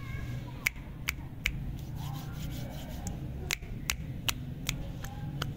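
A run of sharp finger snaps, about nine of them, coming irregularly and at times two or three a second.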